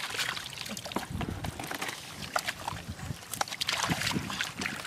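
Shallow muddy water sloshing and splashing as a plastic basket is scooped through it, with water trickling out through the basket's mesh. The splashes come irregularly, short and uneven.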